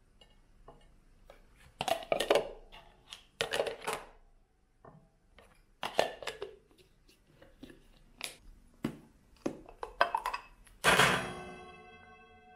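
Red plastic storage bowls and their snap-on lids being opened, lifted and set down on a kitchen counter: a series of sharp clacks and knocks. Near the end a glass bowl clinks loudly and rings on for a second or so.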